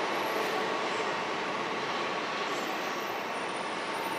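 Electric trains running over the station tracks: a steady noise of wheels on rails, with a faint steady whine.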